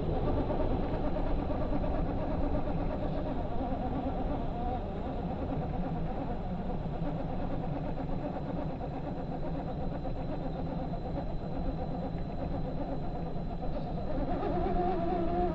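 RC4WD Gelande II Land Cruiser BJ40 scale crawler's electric motor and gears whining as it crawls slowly over a sand mound, the pitch wavering with the throttle and growing louder near the end, over a steady low rumble.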